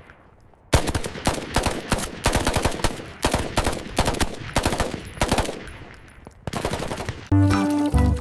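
A rapid run of sharp bangs like machine-gun fire, starting about a second in and stopping shortly before the end.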